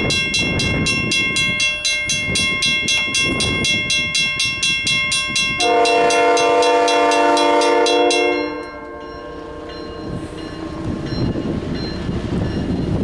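A grade-crossing bell rings about four times a second. About five and a half seconds in, a diesel locomotive's air horn sounds one long blast. Bell and horn stop together about eight seconds in, leaving the low rumble of the approaching CN freight train, which grows toward the end.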